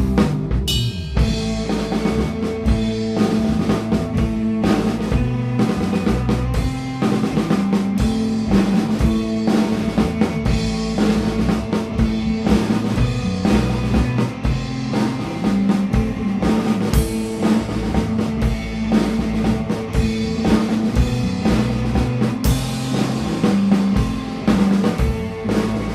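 Instrumental space-groove rock band playing: drum kit with kick and snare hits, electric bass and electric guitar, heard as a rough mix of the drums and live scratch tracks.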